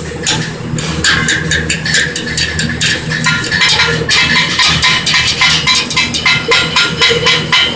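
Stick-welding arc crackling and spitting steadily as an electrode runs a bead, with a low steady hum underneath.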